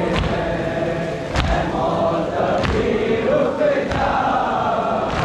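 A crowd of Shia mourners chanting a lament in unison, with chest-beating (matam) slaps landing together about every second and a quarter.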